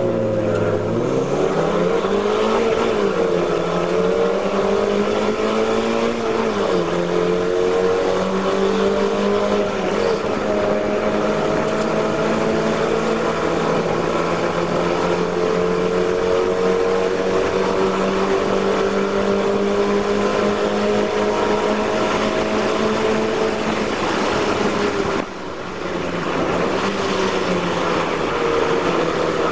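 Mazda MX-5 race car's four-cylinder engine heard from inside the cockpit, revving up hard off the start line and changing up twice in the first few seconds, then running at a steady high pitch down the straight. About 25 seconds in, the engine note drops sharply as the throttle is lifted for braking.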